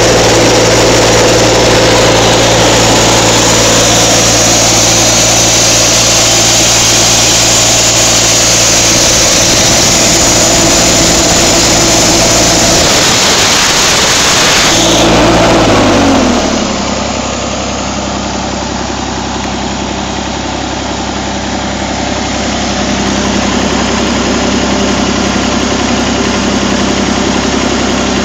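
Broomwade diesel air compressor driven by a Massey Ferguson 135's three-cylinder diesel engine, running steadily at working speed with a hiss over it. About halfway through, the engine speed falls and it settles into a quieter, slower idle.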